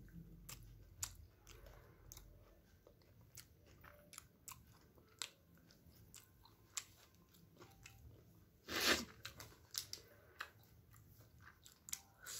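Faint chewing, with many small wet mouth clicks, from a person eating a meal of steamed momos. About nine seconds in there is one short, louder noise.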